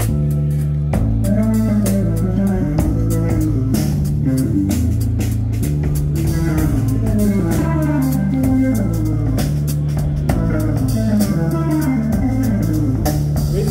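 Live rock band playing an instrumental passage: an electric guitar line with bending notes over a drum kit and an organ, with sustained low bass notes underneath.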